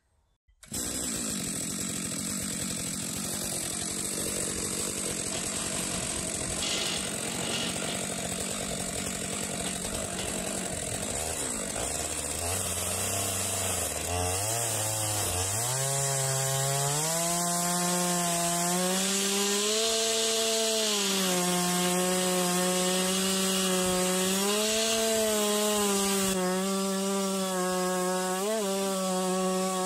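Chainsaw in a Granberg chainsaw mill ripping a cedar log lengthwise. After a stretch of steady running, it is throttled up about twelve seconds in and holds a high, steady whine under load, the pitch wavering a little as the cut bites and eases.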